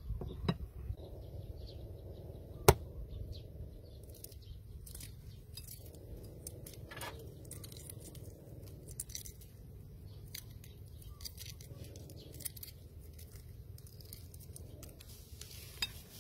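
Boiled eggs being cracked and peeled by hand: scattered small crackles and clicks of eggshell, with one sharp crack about three seconds in.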